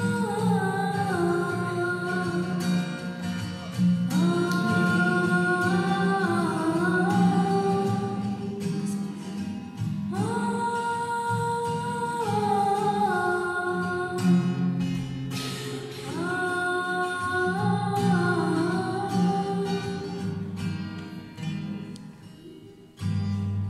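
A girl's high voice sings long held notes that slide from pitch to pitch, in phrases a few seconds long, over a small plucked string instrument. Near the end the music fades briefly, and then a fuller acoustic guitar passage comes in.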